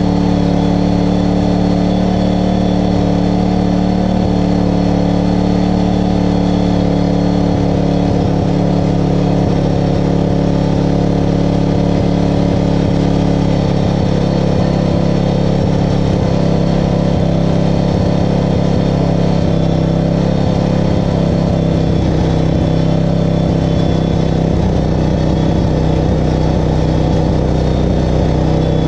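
A John Deere walk-behind lawn mower's small engine runs on its own, a steady, unchanging drone.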